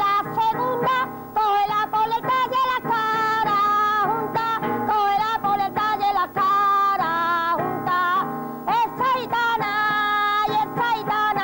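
A woman singing with a strong, wavering vibrato, accompanied by a strummed nylon-string Spanish guitar.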